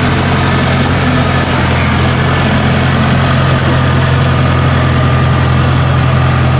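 Kubota DC70 combine harvester's diesel engine running loud and steady while the tracked machine crawls forward.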